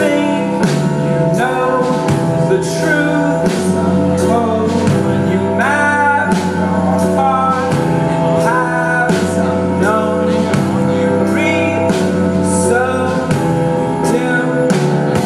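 Live band playing a song: a male lead vocal over electric bass, drums with a steady beat, and keyboard.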